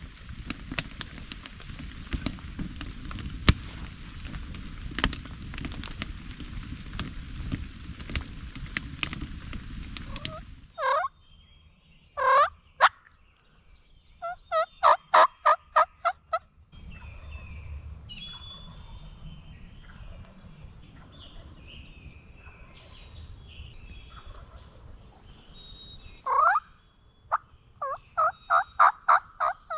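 Wild turkey calling: a few loud sweeping notes, then a rapid run of about eight notes, repeated in a second bout near the end, with faint small-bird chirps between. Before the calls, a steady pattering noise with sharp ticks cuts off abruptly about ten seconds in.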